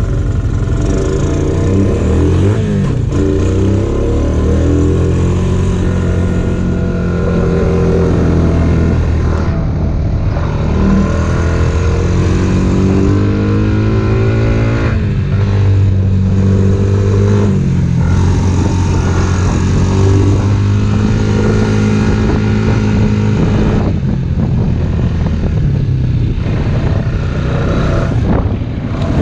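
An off-road vehicle's engine running under load on a trail ride, its pitch repeatedly rising and falling as the throttle is worked.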